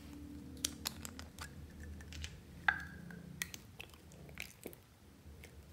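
Small plastic bottle handled, opened and upturned: a series of light clicks and taps, the loudest a sharp plastic click a little before the middle, over a low steady hum.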